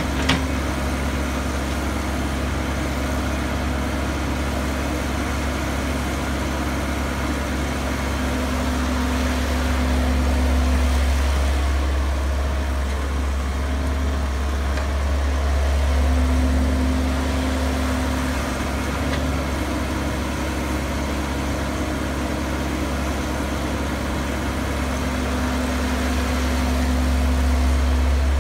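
Diesel engine of a Caterpillar crawler excavator running steadily while it digs and loads soil into a dump truck, its note swelling and easing now and then as it works. A single short click just after the start.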